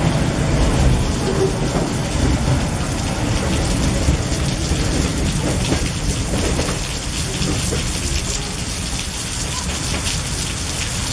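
Heavy rain pouring steadily onto the platform and its canopy, over the low rumble of the last loaded freight wagons passing close, which fades away after about five or six seconds as the end of the train pulls off.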